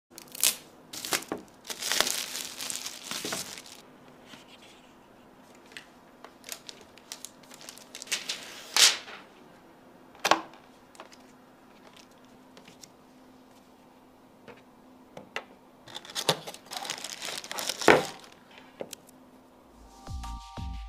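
Laptop unboxing handling sounds: crinkling and rustling of paper and packaging, with irregular knocks and taps as the laptop and cardboard box are handled on a table. Electronic music starts near the end.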